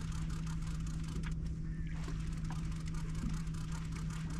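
Steady hum of a boat motor at one constant pitch, with a low rumble under it and a few faint clicks.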